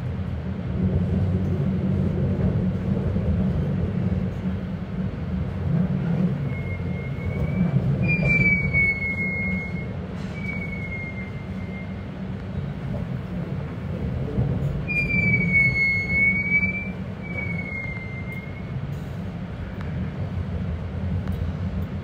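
Electric regional train heard from inside the carriage, rolling slowly with a steady low rumble. Two spells of high, wavering wheel squeal, about a third of the way in and again from about two thirds, come as the train crosses curves and points into the station tracks.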